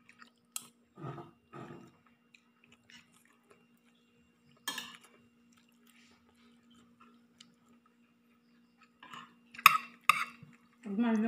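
Sparse clinks and taps of a spoon against a plate and a stainless steel cooking pot during a meal, with a sharp one about five seconds in and two more close together near the end, over a faint steady hum.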